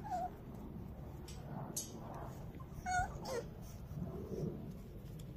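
Dog whimpering: a short high whine at the start, then a louder whine about three seconds in that drops in pitch.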